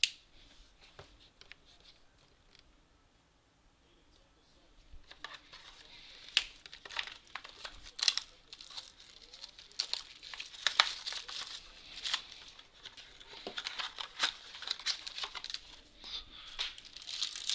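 Wrapping crinkling and tearing as a sealed trading-card mini box is opened by hand, a dense run of sharp crackles that starts about five seconds in after a quiet stretch.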